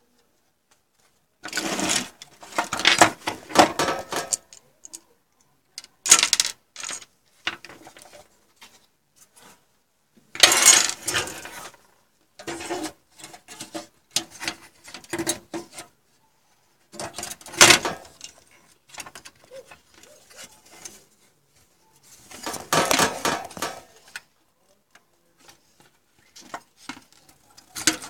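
Handling noise from a desktop motherboard being moved about by hand: clattering and scraping clicks in about six bouts of one to three seconds each, with quiet gaps between.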